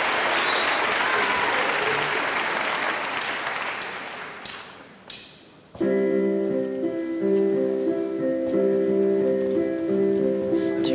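Audience applauding, with a whistle or two, fading away over the first five seconds or so. About six seconds in, the accompaniment starts suddenly with held sustained chords, the instrumental introduction to the choir's next number.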